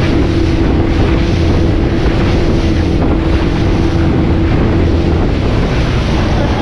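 Speedboat running at speed under a 115 hp outboard motor: a steady engine drone mixed with the rush of water and spray off the hull. Heavy wind buffets the microphone.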